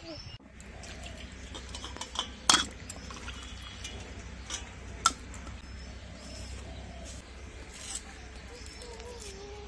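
Cut potato pieces being swished by hand in a stainless steel bowl of water and set onto a steel plate, with a few sharp clinks of steel on steel, the loudest about two and a half seconds in.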